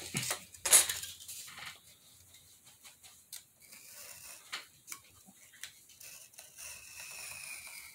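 A craft knife cutting a sheet along a ruler: light scraping and scattered small clicks, with a louder sharp click about a second in.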